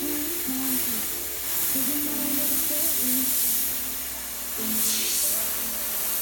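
Iwata HP-BCS Eclipse airbrush spraying paint onto a t-shirt: an airy hiss that swells and fades in stretches as the trigger is worked. Background music plays throughout.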